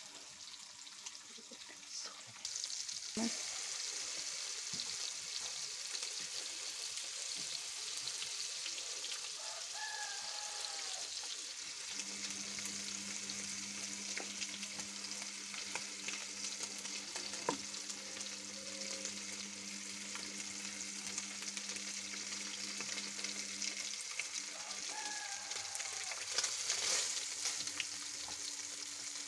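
Chunks of fish frying in hot oil in a pan: a steady sizzle with many small crackles and spits, beginning about three seconds in.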